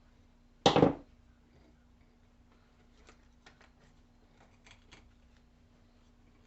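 A short, loud rattling scrape about two-thirds of a second in, then a few faint ticks and taps: tools and small parts being handled during a winch repair. A low steady hum runs underneath.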